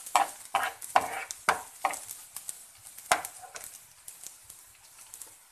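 Metal spoon stirring and scraping chopped onions around a nonstick frying pan: several quick strokes in the first two seconds, then a sharp clink about three seconds in. After that the stirring dies down, leaving a faint sizzle of onions softening in oil.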